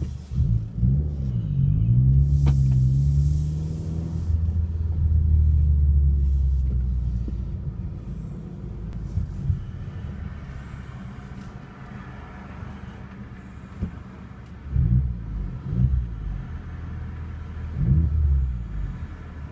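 Car engine and exhaust heard from inside the cabin: a deep rumble whose pitch rises and falls as the engine is revved in the first few seconds, then a loud steady drone. It settles to a quieter drone while driving, with a few brief low swells near the end.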